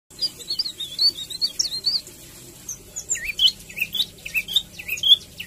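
White-rumped shama (murai batu) giving its agitated chattering 'kretekan' call: a fast run of high chirps for about two seconds, a short lull, then a looser string of sharp chirps.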